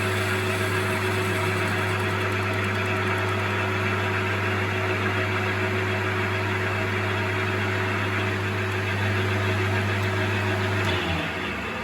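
Metal lathe running steadily with a low motor hum and hiss while a carbide tool takes a finishing pass on a cast iron plate. About eleven seconds in, the motor note drops away and the sound gets quieter.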